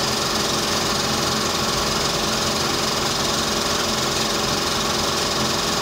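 Dental treatment equipment running steadily, a constant motor sound with a high hiss that neither starts nor stops.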